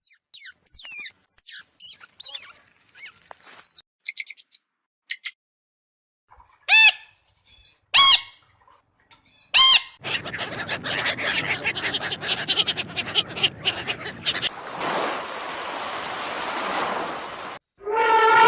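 A series of different animal calls: high chirps and whistled glides in the first few seconds, three loud short calls about a second and a half apart in the middle, then several seconds of noisy hiss, and a new pitched call starting near the end.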